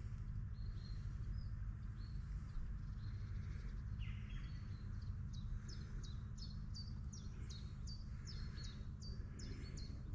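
Birds chirping over a steady low hum like an idling engine. From about halfway, one bird repeats a short, high, falling chirp two or three times a second.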